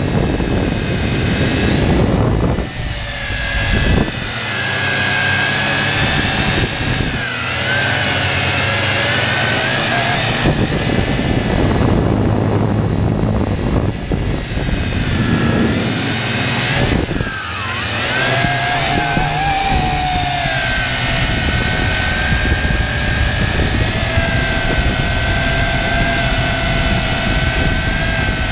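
Multirotor drone's electric motors and propellers whining right beside the onboard camera. The pitch dips and rises several times, sharply once about two-thirds of the way through, as the throttle changes, then holds steadier near the end.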